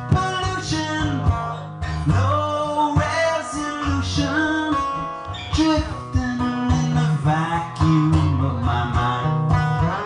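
Acoustic guitar strummed in a steady rhythm while a man sings the song's verse.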